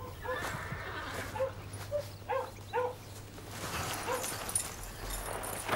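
A string of short, pitched animal calls, about two a second, then one more about four seconds in, over a steady low hum.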